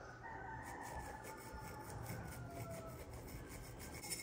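Small glass jar rubbing flour through a fine stainless-steel mesh sieve: a faint scraping with a thin squeak that slides slightly down in pitch, and light ticks of the mesh. A sharp tap near the end.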